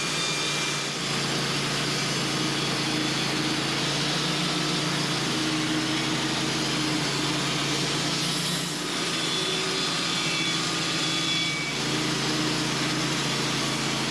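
Band sawmill running steadily as it squares a hickory log: an engine-like hum under a broad hiss, dipping briefly three times.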